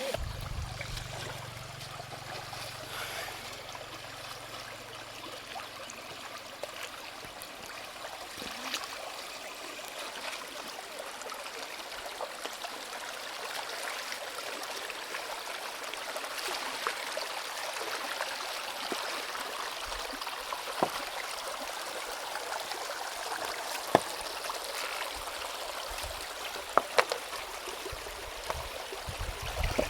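Stream water running steadily over stones, with a few sharp clicks or knocks, the loudest near the end.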